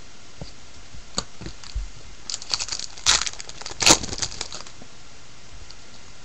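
Trading cards and foil card-pack wrappers being handled. A few light clicks come first, then a burst of crinkling rustles about two to four seconds in.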